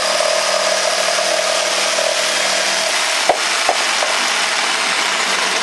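Corded jigsaw running and cutting through 2-inch-thick wood, a loud, steady sawing noise with a steady hum. A little after three seconds the hum drops away and two sharp knocks sound as the blade comes through the end of the cut, the saw still running.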